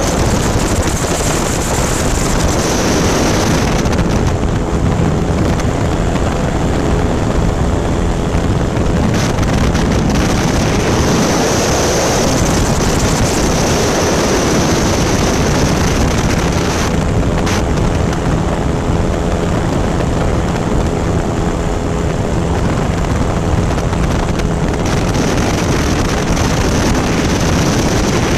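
Ultralight aircraft in flight: its engine and propeller drone steadily under heavy wind rushing over the microphone.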